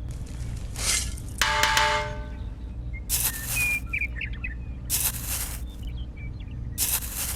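Birds chirping briefly, over a steady low hum, with short bursts of noise about every two seconds, one of them carrying a brief ringing tone.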